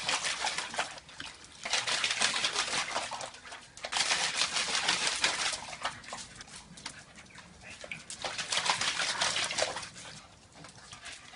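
A pug splashing about in a shallow plastic tray of water, in several crackly bursts of one to two seconds with short lulls between them, the dog's own sounds mixed in.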